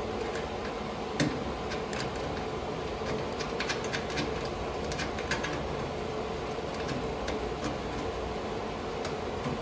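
Scattered small clicks and taps of a metal circular cable connector being pushed into its socket and its locking collar turned, over a steady hum, with a cluster of clicks in the middle.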